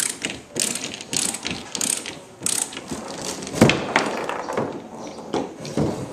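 Ratcheting screwdriver backing out the screws that hold a canoe seat frame to the gunwale: the ratchet clicks in short runs on each back-stroke, with one louder knock about three and a half seconds in.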